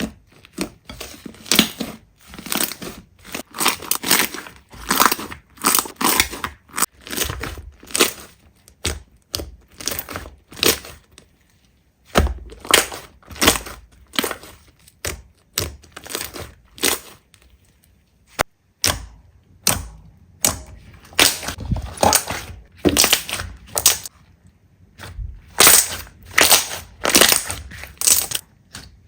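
Slime being squeezed and worked by hand: many short, sharp sticky pops and crackles in quick, irregular succession, with a few brief pauses.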